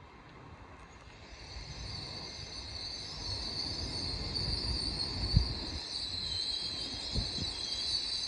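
LNER Azuma (Hitachi Class 800-series) train running slowly into the platform, its rumble and a high, steady squeal from wheels and brakes growing louder as it approaches. A couple of short low thumps come about five and seven seconds in.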